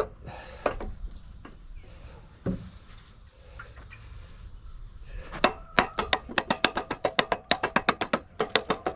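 Rapid light tapping, about four strikes a second from about five seconds in, seating the front seal assembly back into a log splitter's hydraulic cylinder. A few scattered knocks come before it.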